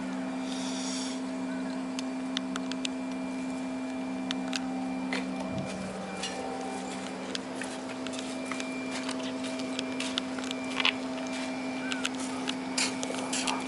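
A steady low machine hum, with scattered faint clicks and taps over it; the hum wavers briefly about halfway through.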